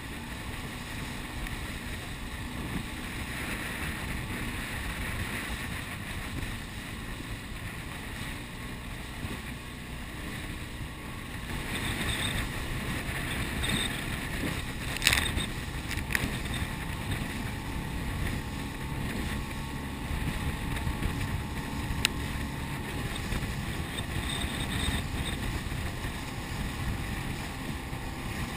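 Wind buffeting the microphone and water rushing past a fast-moving boat, a steady noise that grows louder about halfway through. A few sharp knocks stand out over it.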